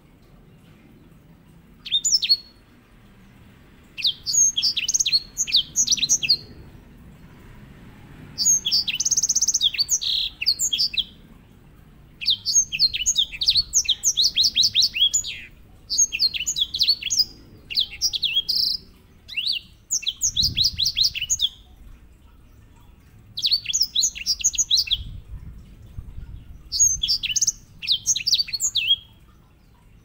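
Grey singing finch (Serinus leucopygius) singing its rolling song: about eight quick, rapid-note trilling phrases, each a second or two long, with short pauses between them.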